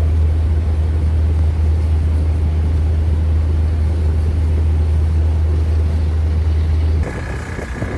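Steady low drone of a boat's engine with a wash of wind and water noise. About seven seconds in it cuts off abruptly, giving way to a quieter mix with a faint steady high tone.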